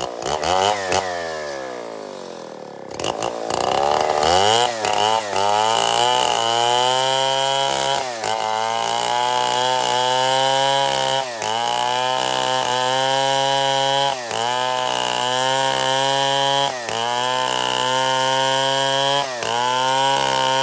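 Stihl MS 070 chainsaw's large single-cylinder two-stroke engine revving up and dropping back, then held at full throttle from about four seconds in. Its pitch sags briefly about every three seconds and recovers, as the chain is loaded in the cut through matoa wood.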